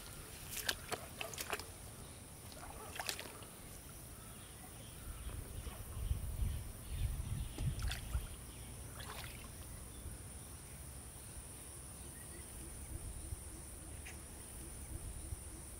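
Rustling of leafy pond-edge plants and soft sloshing of bare feet and hands in shallow muddy water, in scattered bursts with low thuds around the middle. A steady high insect drone runs underneath.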